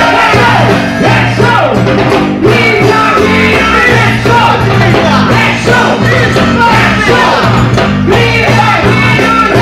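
Loud band music with a steady repeating bass line and a melodic lead that sounds like singing.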